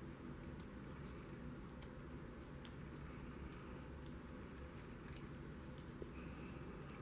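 Faint, irregular clicks of a lock pick working the pin stack of a Shield Security 40 mm padlock held under heavy tension, over a low steady hum.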